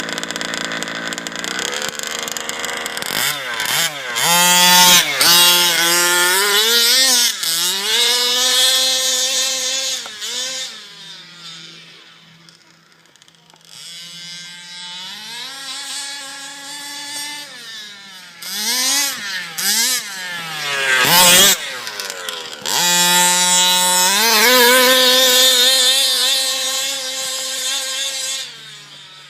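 Small two-stroke petrol engine of a 1/5-scale HPI Baja RC car running and being revved: it climbs from idle in repeated rising and falling blips, settles back to idle twice, and is held at high revs near the end before dropping away.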